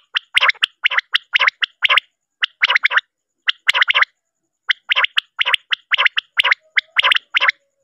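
Common quail calling: short bursts of quick notes repeated several times a second in groups, with brief silent pauses about three and four and a half seconds in.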